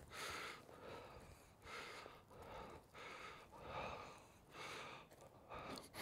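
Faint, quick, soft breaths of a person, about one and a half a second, each a short puff of air.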